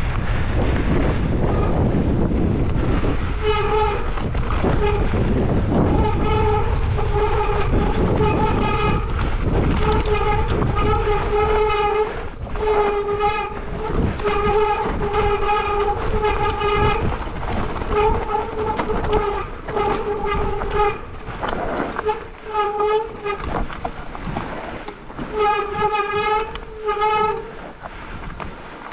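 Mountain bike on a downhill run: rushing tyre and wind noise, then from a few seconds in a steady-pitched whine with overtones that comes and goes in repeated bursts, from half a second to a few seconds long. The rush eases about halfway through.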